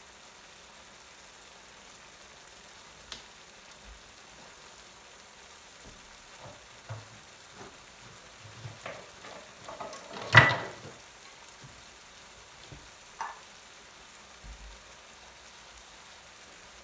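Thick curry sauce simmering and reducing in a frying pan: a steady faint sizzle with scattered bubbling pops, one much louder sharp pop about ten seconds in.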